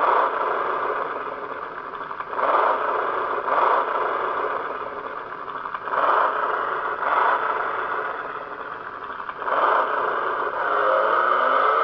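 Recorded sound of an HSV 6.0-litre V8 played through the small speaker of an HSV REV alarm clock radio, thin with little bass. The engine blips its throttle at idle about six times. Near the end it goes into a sustained, rising rev as it begins to accelerate hard.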